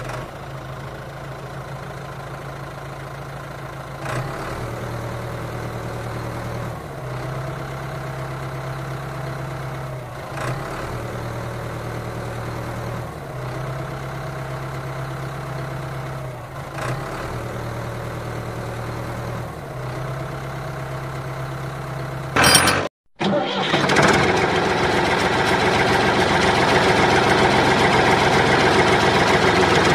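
Tractor engine sound idling, with a pattern that repeats almost identically about every three seconds, like a looped recording. About three-quarters of the way through, a loud burst is followed by a brief cut-out, and the engine sound returns louder and rougher.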